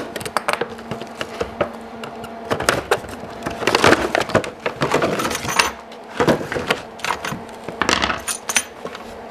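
Stiff clear plastic packaging crinkling and crackling as it is pulled out of a box and handled, with many sharp clicks and snaps, busiest about four to six seconds in and again near the end.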